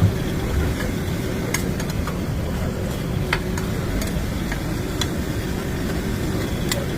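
A steady low rumble of background noise, with scattered sharp clicks and taps throughout.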